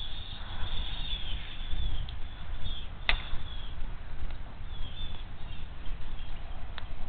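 Outdoor wind rumble buffeting the nest-camera microphone, with faint high bird calls and a sharp click about three seconds in, another near the end.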